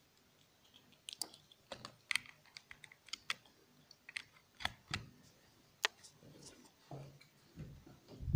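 Irregular clicks and taps of a small plastic device being handled and turned over close to the microphone, with a few duller knocks near the end.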